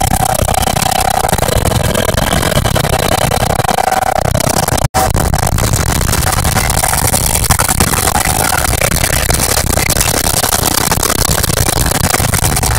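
Loud, steady helicopter cabin noise in flight: engine and rotor din with a fast pulsing rumble, a high rushing hiss and a steady whine in the first few seconds. The sound cuts out for an instant about five seconds in.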